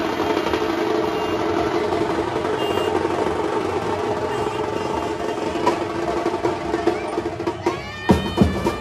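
Procession music with drums: a dense, steady din of instruments and drumming, then from about eight seconds in, loud sharp drum strikes.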